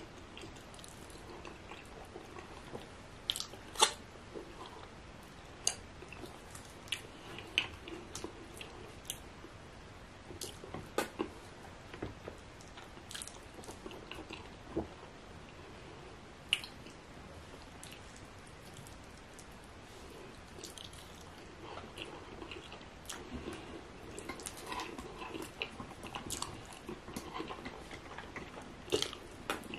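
Close-up eating sounds: chewing, with wet mouth smacks as fufu dipped in sticky, stringy ogbono soup is eaten by hand. The sharp smacks come at irregular gaps of a second or two.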